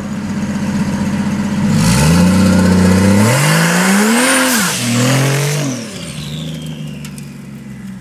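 Turbocharged Vortec 4200 inline-six in a 1962 Fiat 118G accelerating under load. The revs climb about two seconds in, peak, drop off, then rise briefly once more and settle, with a high whistle falling away after the peak.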